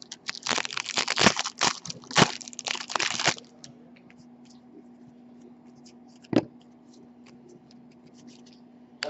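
Foil trading-card pack wrapper crinkling as it is torn open, for about three seconds. Then quiet, with one light tap about two-thirds of the way through.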